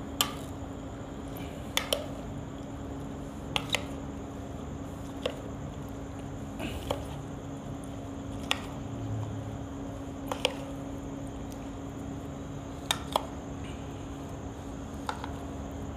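A metal spoon stirring chopped salad and yogurt in an enamel bowl: soft squelching, with a sharp clink of the spoon against the bowl every second or two, sometimes two in quick succession. A steady low hum runs underneath.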